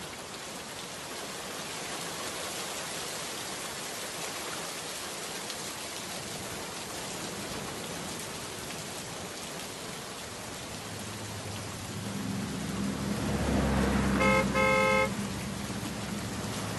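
Steady rain falling. Past the middle a car's engine rises and then eases, and near the end its horn toots twice, first briefly, then a little longer.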